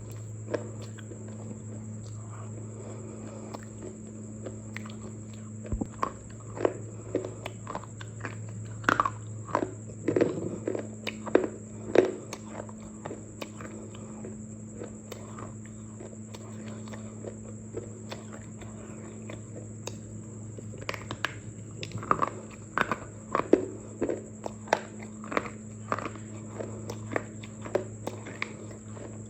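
Crunchy bites and chewing of baked clay pieces, in two bursts of sharp crackling crunches, over a steady low electrical hum.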